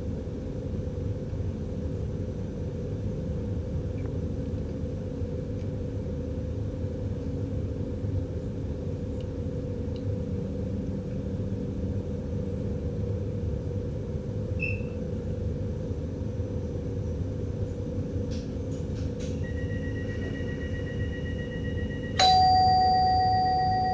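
Steady running rumble in the cab of a DDZ double-deck train. About 22 seconds in a single loud electronic chime rings out and slowly fades, a cab alert tone, with a faint steady high tone sounding for a few seconds before it.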